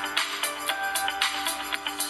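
Background music with a steady percussive beat over held melodic notes.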